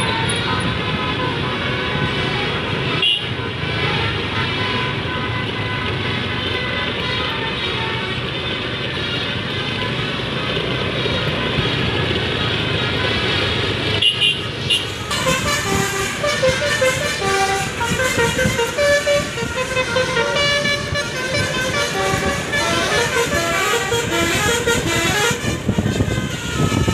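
Bus engine and traffic noise, then, from about halfway through, a bus's 'basuri' telolet horn, a multi-note musical air horn, playing a melody of quick changing notes.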